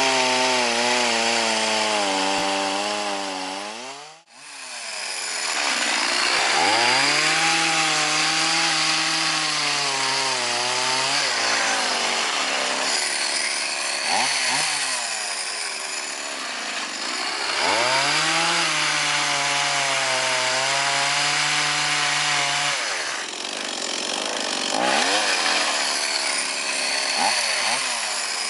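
Two-stroke chainsaw engine driving an earth-auger attachment, its speed repeatedly rising and sagging. About four seconds in the sound drops away almost to nothing for a moment, then the engine picks back up.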